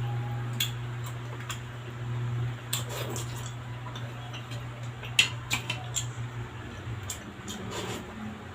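Spoon and fork clicking against a plate in short, scattered taps during a meal, over a steady low hum.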